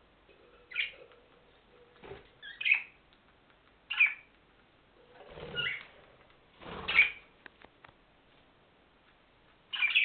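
Budgerigars giving short, harsh chirps and squawks, about six calls a second or two apart, two of them in the middle with a rustle of movement underneath.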